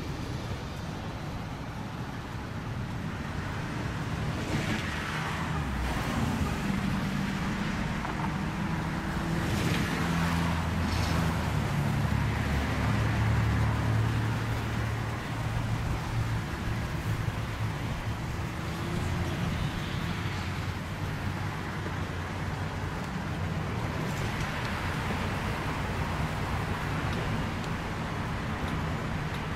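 Road traffic: a vehicle goes past with engine hum and tyre noise, loudest about halfway through, over a steady background of road noise.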